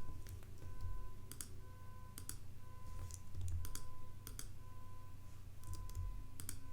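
Scattered clicks of a computer mouse and keyboard at irregular intervals, several in quick pairs, over a steady low electrical hum.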